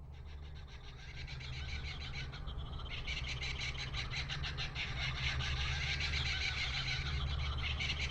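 Forest ambience fading in: a dense chorus of rapidly pulsing insect calls over a steady low rumble.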